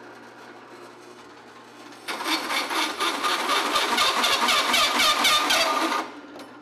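Drill press motor running with a steady hum; about two seconds in, a 2 3/8-inch hole saw bites into a steel square tube and cuts with a loud, rapid chattering screech, which stops suddenly about four seconds later. The drill press struggles with the cut.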